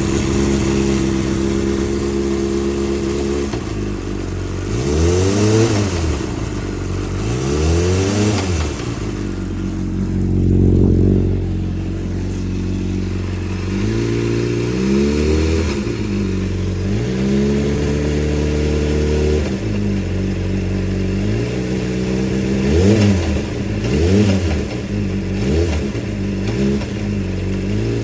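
Motorcycle engine idling and being revved in repeated short blips, each rising in pitch and dropping back to idle. The owner reports a weird knock when the throttle is dropped.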